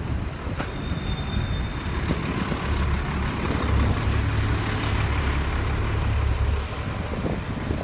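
Steady rushing ride noise as a mountain board rolls along pavement: wind buffeting the phone microphone over a low rumble, heaviest through the middle few seconds.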